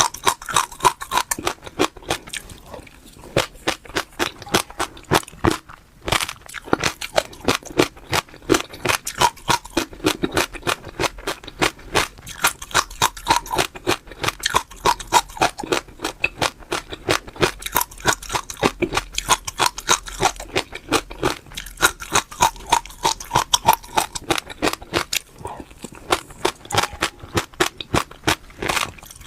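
Close-miked chewing of crunchy food: rapid, crisp crunches several times a second, with a few short pauses.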